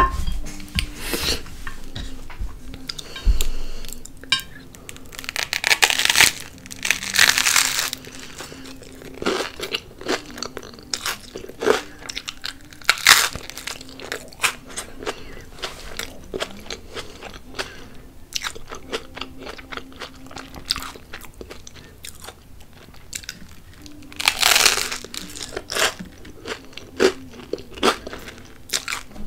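Close-up eating of avocado toast: crunchy bites into the crusty bread and wet chewing clicks. Two long bouts of loud crunching come about six seconds in and again about twenty-four seconds in.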